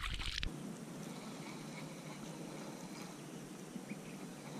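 A released bass splashes back into the water at the very start. After that comes only a faint, steady hiss of open-air background noise.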